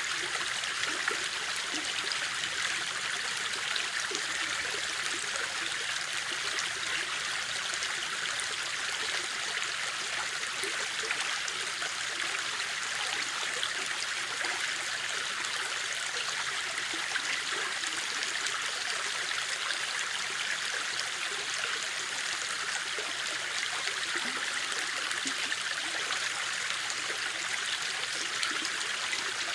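Stream or small river flowing over rocks, a steady rushing and trickling with no pauses.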